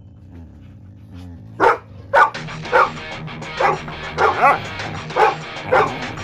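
Dog barking and yipping in a run of about eight short, sharp barks starting about a second and a half in, over background music. The barks are aimed at its owner's sheet face mask, which the dog will not tolerate.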